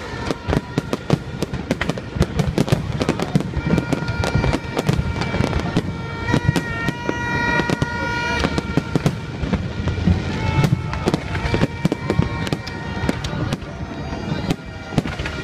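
Fireworks display: many aerial shells bursting in quick, irregular succession, a dense run of bangs and crackles, with music of sustained tones playing underneath.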